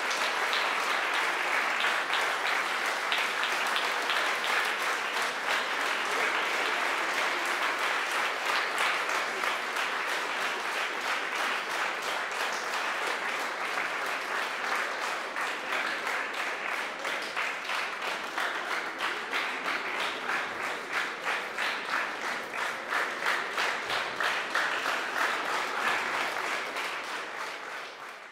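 Audience and choir applauding, the clapping settling into a steady rhythmic unison, roughly two to three claps a second, about halfway through, then fading out near the end.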